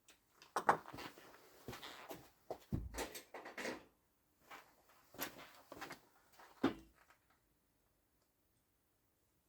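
Irregular clicks, knocks and scraping of hand tools against the small metal parts of a robotic mower's wheel motor during disassembly. The sharpest knocks fall at the start and about two-thirds of the way through.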